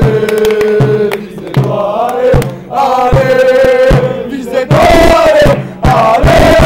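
Football supporters on the terraces chanting loudly in unison, with rhythmic hand claps a little faster than once a second.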